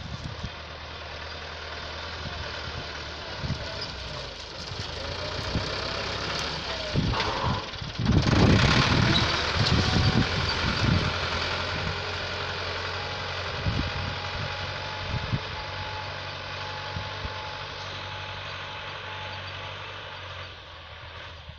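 Farm tractor engine running steadily, with a louder, rougher stretch of low knocking from about eight to eleven seconds in.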